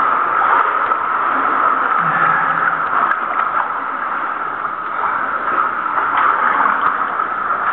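Steady sloshing and gurgling of water, with small splashes, as a caver moves through the flooded passage of a cave sump.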